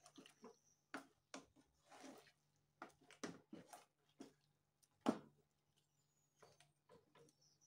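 Spatula stirring a large metal pot of thick, leafy afang soup: irregular soft knocks and wet squelches as it turns the leaves and meat and taps the pot, the sharpest knock about five seconds in.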